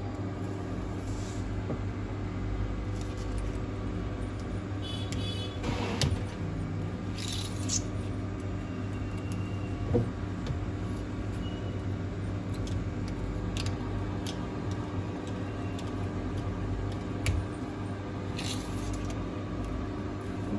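Steady hum, with a few short scratches of a cutting wire being drawn through the adhesive between a Samsung S9's cracked front glass and its display, and a couple of small clicks.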